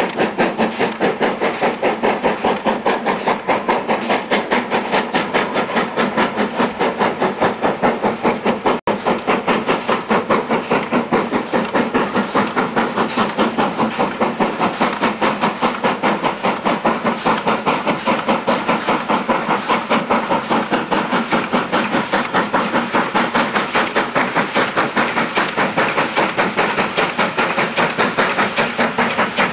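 Steam locomotive hauling a passenger train, its exhaust beats coming in a quick, even rhythm of several a second over a steady hiss.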